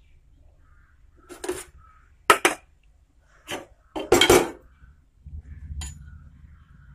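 Stainless steel kitchen utensils clinking and knocking: about half a dozen sharp metallic clinks spread over several seconds, two of them louder.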